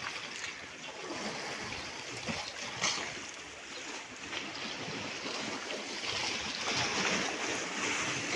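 Sea water sloshing and lapping against shoreline rocks with the tide coming in, a steady wash with a few small splashes, growing a little louder toward the end.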